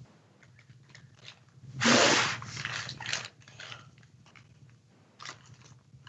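A knife being worked into the thick, spiky husk of a whole durian held in a towel over a plastic bag: scattered small clicks and rustles, with one loud rasp about two seconds in and smaller ones around three and five seconds.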